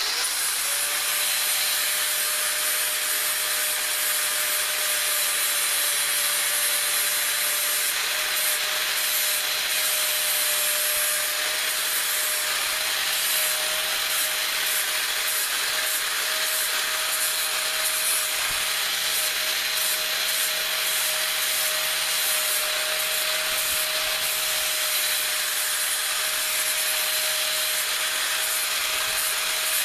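Angle grinder with a 60-grit flap disc grinding the end of a coil-spring steel chisel held in a vise, rounding it into a dome. The motor runs at a steady whine over the constant hiss of the disc on the steel.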